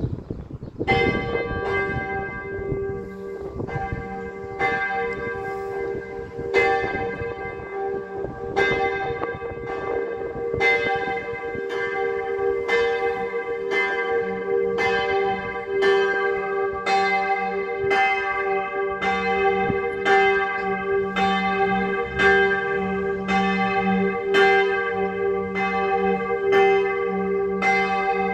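A single swinging church bell, tuned to g' and cast in 1959 in St. Florian, starts about a second in and rings steadily at roughly one strike a second, each stroke ringing on into the next. This is the Sterbestunde (hour-of-death) ringing, tolled on this one bell alone.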